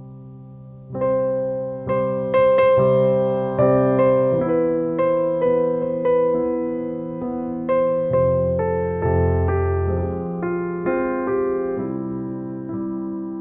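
Background music: a keyboard playing slow chords, each struck and then fading. It grows louder about a second in.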